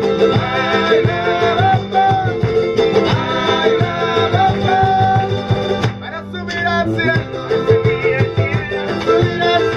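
Background music in a Latin American style, with plucked strings over a steady beat. It thins out briefly about six seconds in.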